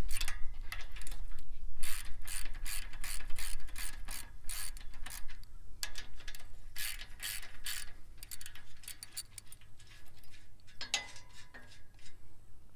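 Hand socket ratchet clicking in quick runs, with short pauses between them, as it loosens the hold-down nuts on a sickle bar mower's cutter bar.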